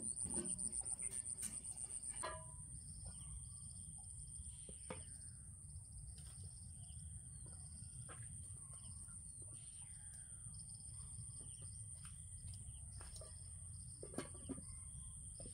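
Insects droning steadily at a high pitch, pulsing rapidly for the first couple of seconds, with short chirps repeating over it and a low rumble underneath.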